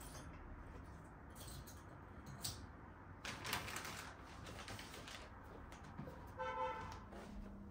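Scattered household knocks and rustling, with a short pitched beep about six and a half seconds in.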